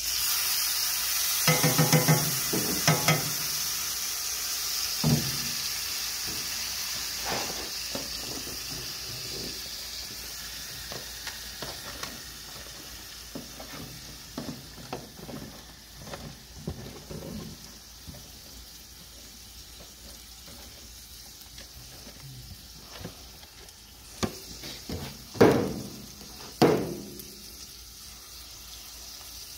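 Food sizzling in a hot skillet on a gas grill, loud at first and slowly dying down, with a few sharp knocks of a utensil against the pan.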